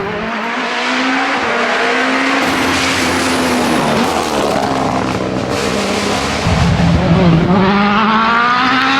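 World Rally Car's turbocharged four-cylinder engine revving hard at speed. Its pitch climbs and drops repeatedly with the gear changes, with a short dip and a fresh climb about seven seconds in.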